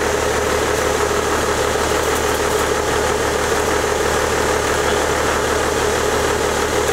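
Toyota Land Cruiser FJ80's engine idling steadily.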